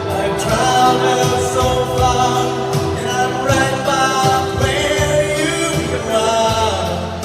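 A song with a singing voice over a backing track, played through a microphone and speaker system during a mic test.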